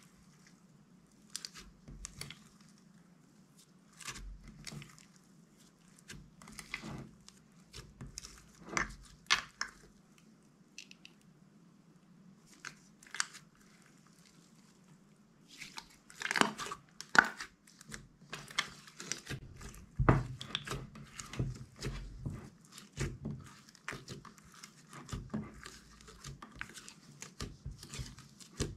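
Hands kneading and stretching glossy clear slime: irregular sticky pops and crackles. They are sparse at first and come thick and fast from about halfway through.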